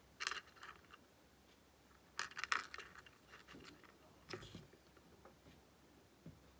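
Syrian hamster rummaging in a plastic food bowl: hard pieces of dry food click and rattle against the plastic in a few short runs, the loudest about two and a half seconds in.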